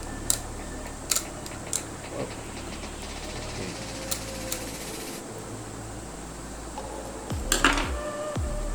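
Scattered small clicks and taps of small screws and a screwdriver being handled on a plastic RC car chassis during disassembly, with a cluster of louder clicks near the end over a steady low hum.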